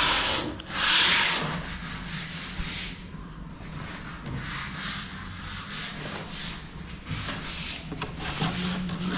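Sandpaper rubbing on wood in repeated back-and-forth strokes, heavier at first and then lighter and quicker.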